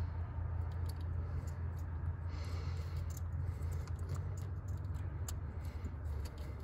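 A steady low hum with a few faint, scattered clicks and rustles as a hand works the knock sensor's plastic wiring connector and harness, deep under the engine's intake manifold.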